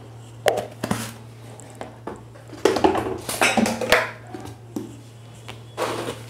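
Metal kitchenware clinking and knocking against an aluminium kadai of dal, in a few short sharp clicks about half a second and a second in, then louder clattering in the middle and again near the end, over a steady low hum.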